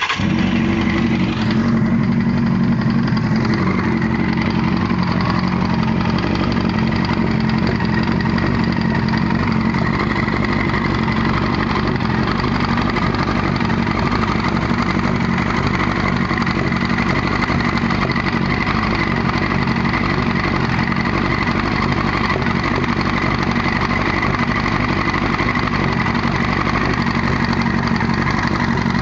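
1998 Yamaha R1's inline-four engine idling steadily with a weird knocking sound. The owner places the knock behind the clutch and suspects a visible chain wobble; others have suggested the valves, the cam chain tensioner or the clutch gasket.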